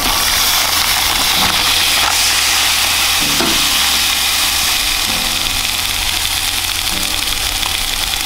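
Beef hot links sizzling on the ribbed plate of a hot Ninja indoor electric grill: a steady, loud sizzle over a low hum.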